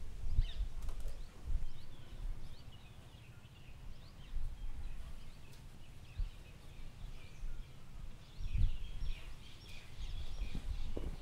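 Small birds chirping in many quick, short calls, busiest near the end, over a low rumble with a few dull thumps, the loudest about two-thirds of the way in.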